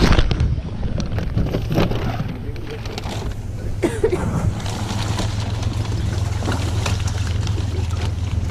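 Crinkling and rustling of a plastic fish weigh-in bag as it is handled and lowered into a plastic utility sink, with scattered clicks and knocks over a steady low hum. It opens with a loud burst of handling noise on the camera.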